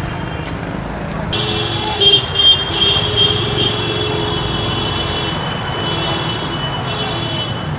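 Street traffic noise on a waterlogged road: a steady low rumble, joined about a second in by a sustained high, horn-like tone that holds for most of the rest, with a few sharp clicks around two seconds in.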